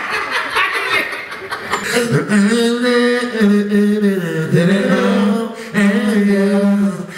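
A man singing into a microphone without backing music, drawing out a run of long held notes from about two seconds in.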